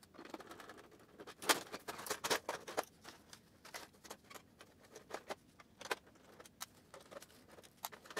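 Irregular plastic clicks, knocks and rattles of an HP PhotoSmart C4283 all-in-one inkjet printer's casing being taken apart by hand, its scanner lid and top parts coming off. The sharpest knock comes about one and a half seconds in.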